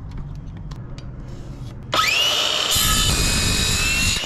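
Makita cordless circular saw starting up about two seconds in, its whine rising in pitch, then running steadily as the blade cuts through a wooden board. A few faint handling clicks come before it.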